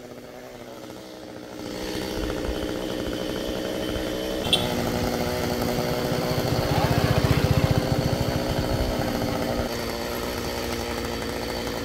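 Stihl chainsaw running, faint at first and growing louder after a couple of seconds. It is loudest a little past the middle, then runs steadily, with one short click about four and a half seconds in.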